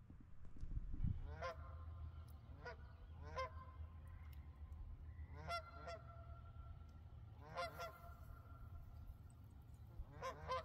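Geese honking: a string of short honks every second or two at irregular intervals, several in quick pairs, over a steady low rumble.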